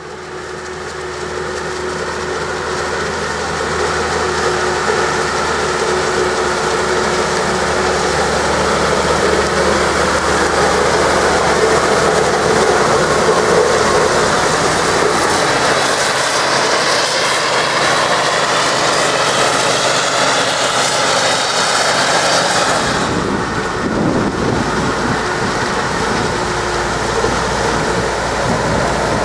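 Forage harvester chopping maize with a tractor and silage wagon running alongside: a steady heavy run of diesel engines and the hiss of chopped crop, fading in over the first few seconds. About 23 seconds in the sound changes, the hiss dropping away and a deeper engine rumble coming forward.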